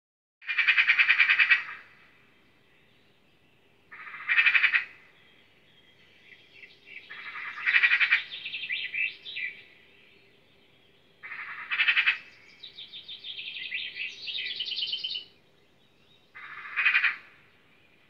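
Five loud animal calls, each about a second long and rapidly pulsed, every three to four seconds, with quieter chattering trills between them.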